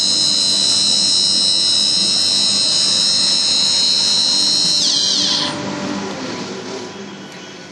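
Chinese-made high-speed CNC router spindle on a VFD, running at about 20,000 rpm with a steady high whine. About five seconds in it is shut down: the whine slides down in pitch and fades as the spindle spins down.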